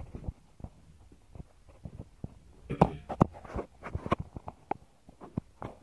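Irregular knocks, clicks and rustling of someone moving about and handling things, with a busier patch of rustling and knocks about three seconds in.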